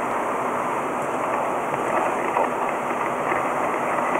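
Steady road and drive noise heard inside a vehicle cruising on a freeway at about 95 km/h, an even rushing sound with no distinct events.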